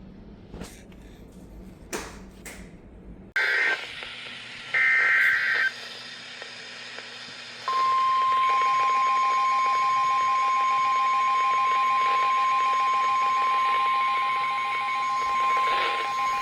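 NOAA Weather Radio emergency alert: after a few seconds of hiss, two short screeching SAME data bursts, then the steady single-pitch 1050 Hz warning alarm tone starting near eight seconds and holding to the end, with fainter pulsing beeps under it. The tone announces a severe thunderstorm warning.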